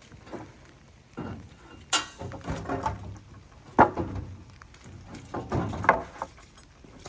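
Things being shifted by hand: scraping and rustling, with three sharp knocks about two seconds apart.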